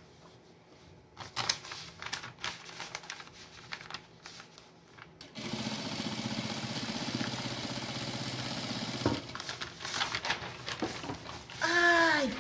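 Industrial sewing machine running steadily for about four seconds, stitching through layers of cotton fabric and batting, with fabric being shifted and handled before and after. Near the end comes a short voice sound, falling in pitch.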